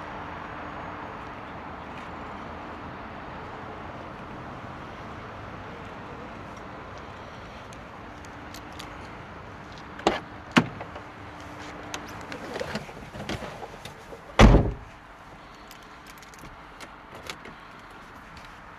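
Car door being worked: two sharp clicks, some rattling and handling noise, then the door shuts with a loud heavy thud about two-thirds of the way in. The steady background noise is quieter after it closes.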